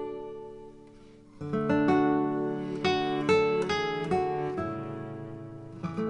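Background music on acoustic guitar: plucked notes fade away, then a fuller strummed passage comes in about a second and a half in.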